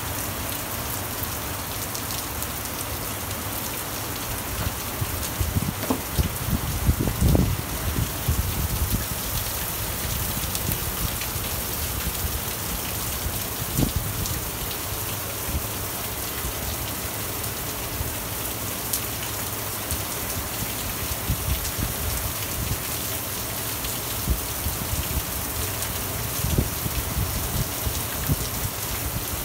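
Heavy rain falling steadily in a severe thunderstorm, with bursts of low rumble, strongest about six to eight seconds in and again near the end.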